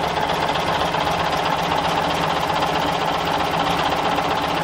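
Engine idling steadily with a fast, even beat.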